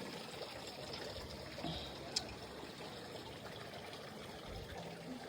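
Garden water fountain trickling steadily and faintly, with a single small click about two seconds in.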